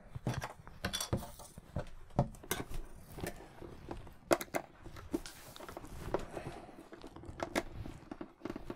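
Irregular light clicks, taps and scrapes from a hard plastic helmet being handled and turned while a small screwdriver works the screw on its battery-compartment flap.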